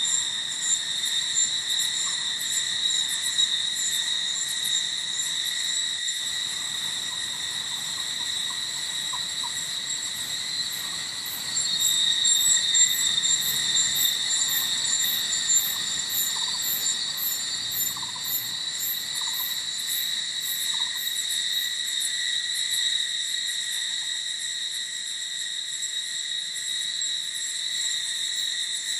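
Forest insects droning steadily at a high pitch, with a second insect's quick, evenly pulsed high chirping joining about ten seconds in and stopping past the two-thirds mark. A few faint short calls sound lower down.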